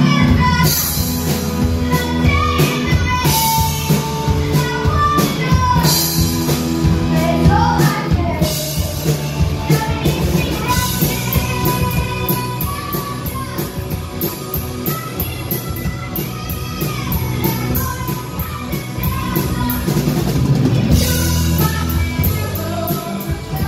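Live rock band playing a song: a singer's voice through a microphone over a drum kit and backing instruments.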